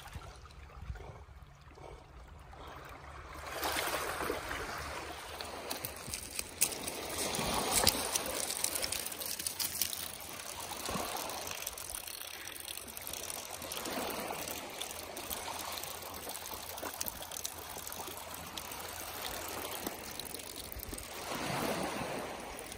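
Water trickling and pouring out of a LEGO boat's hull onto beach pebbles, starting a few seconds in, in an uneven stream that swells and eases. It is seawater the boat has taken on while floating.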